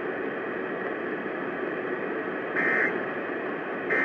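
Radio hiss, then, about two and a half seconds in, short harsh data bursts of the Emergency Alert System end-of-message code, a little over a second apart, the second starting near the end.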